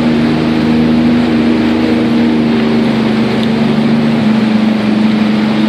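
Personal watercraft (jet ski) engine running steadily at low speed, a steady hum with a rushing haze; its pitch drops slightly about four seconds in.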